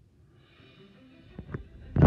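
Faint music fading in from silence, with a few knocks near the end.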